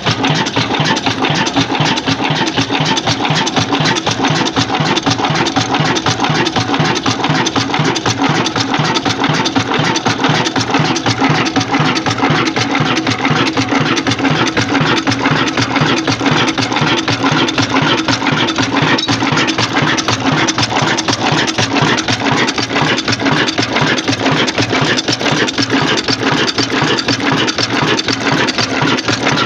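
Ruston 40 HP stationary diesel engine running steadily, with a fast, even beat of firing and mechanical knock.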